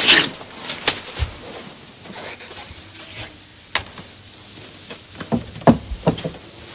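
Quiet room hiss broken by scattered soft clicks and knocks, with a small cluster of them near the end as objects are handled on a desk.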